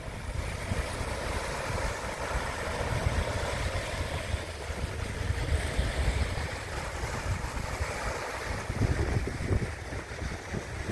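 Small waves washing onto a sandy beach, with gusty wind rumbling on the microphone.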